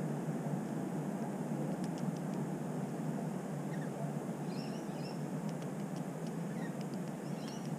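Steady low rushing background noise, with a few faint, short high bird chirps about halfway through and again near the end, and a few light clicks.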